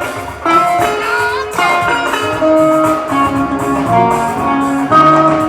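Live band music with guitar: a melody of short held notes over a steady accompaniment.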